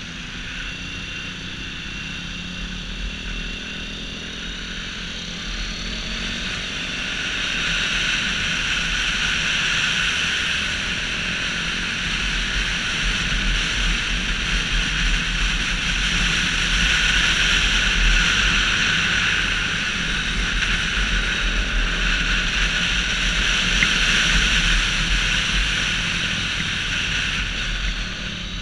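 Sport motorcycle's engine running at track speed with wind rushing over the bike-mounted microphone. It grows louder from about six seconds in, stays loud through the middle with small rises and falls, and eases near the end.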